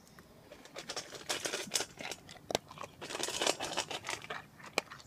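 American Foxhound eating dry kibble from a stainless steel bowl: quick crunches and clicks start about a second in and come in two dense runs, with a last single click near the end.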